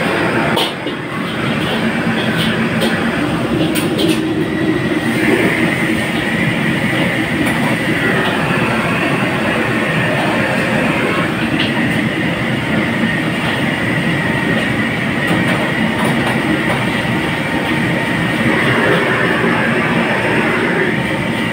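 Restaurant gas wok burner running under a wok of hot oil in which a foil-wrapped pompano is deep-frying: a loud, steady rushing noise with a faint high whine through much of it and a few light clicks in the first seconds.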